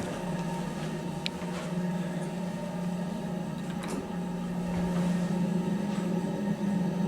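Kone MonoSpace lift car travelling between floors: a steady low hum from the moving car and its drive, with a couple of faint clicks.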